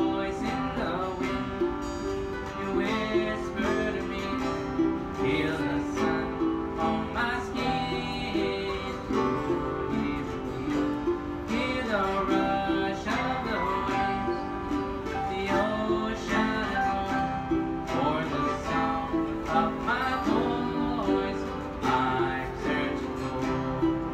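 Live acoustic band playing a song: strummed guitar and ukulele with piano.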